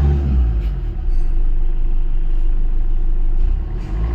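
Maruti Suzuki Swift diesel engine running, revs dropping back just after the start and then running steadily at idle, now starting normally with its main relay cleaned of ants.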